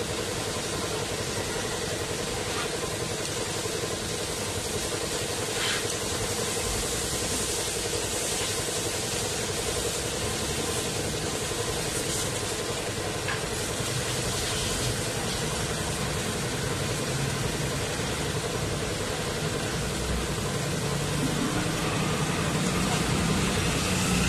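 Hose spraying water onto motorcycles: a steady hiss of spray over a constant machine hum. A low engine rumble builds near the end.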